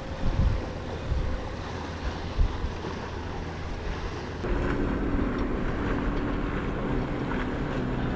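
Wind buffeting the microphone over open water, with a few sudden bumps. About four and a half seconds in, a steady low engine drone of a motorboat takes over.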